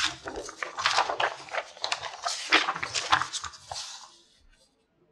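A large translucent sheet being handled, crinkling and rustling with many sharp crackles, fading out about four seconds in.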